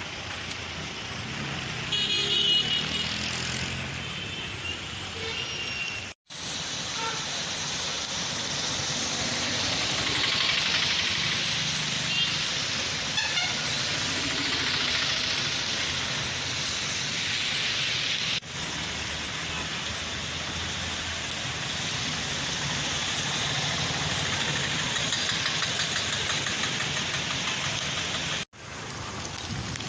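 Street traffic noise, a steady hiss of vehicles, with a vehicle horn honking about two seconds in. The sound cuts off abruptly three times as one street clip gives way to the next.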